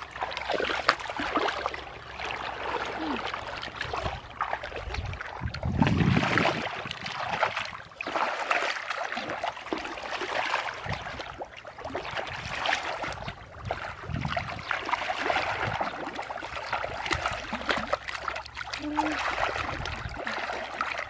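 Shallow muddy water sloshing, splashing and squelching as hands and knees churn through it while groping in the mud for fish, in an irregular stop-start texture.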